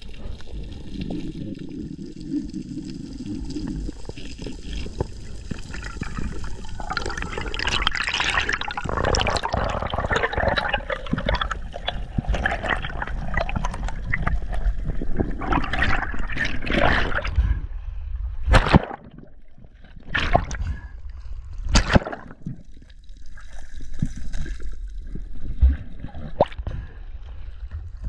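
Water swishing and bubbling around an underwater camera, loudest through the middle, followed by a few sharp knocks or splashes in the last third.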